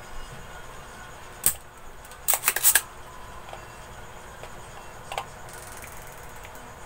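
Spring-loaded plastic desoldering pump at work on a circuit board, sucking solder off transistor pins: one sharp snap about one and a half seconds in, a quick cluster of clicks and clacks a second later, and a lighter click near five seconds.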